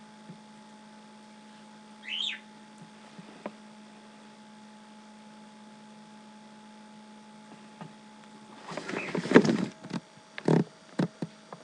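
A cockatiel gives one short rising chirp about two seconds in. Near the end comes a loud rustling flurry, the wet bird flapping and shaking its feathers, followed by a few sharp clicks.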